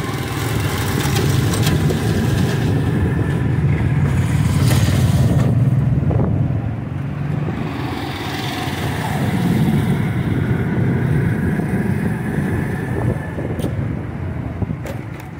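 Motorcycle engine running as the bike rides along a street, heard from on the bike itself. The rumble swells and eases a little as the bike speeds up and slows.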